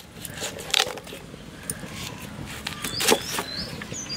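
Kitchen knife cutting through the crisp stalks of a fresh cauliflower on a wooden board: a few separate sharp cuts and snaps, one just under a second in and the loudest about three seconds in.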